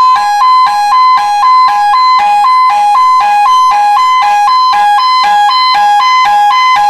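Industrial alarm sounder on a strobe-light unit, powered up at its breaker, sounding its two-tone alarm melody: a high and a slightly lower tone alternating evenly about twice a second, very loud and steady.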